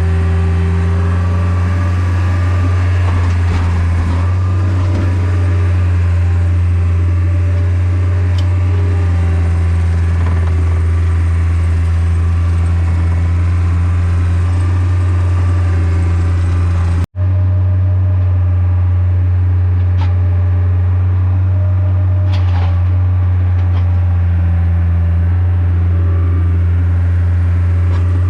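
Engine of a log-loading machine running steadily close by with a strong low drone, a few faint clicks over it; the sound drops out for an instant about two-thirds of the way through.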